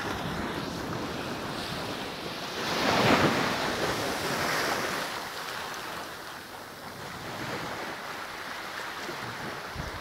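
Small sea waves washing onto a sandy beach, mixed with wind rumbling on the microphone; the noise swells loudest about three seconds in, then settles.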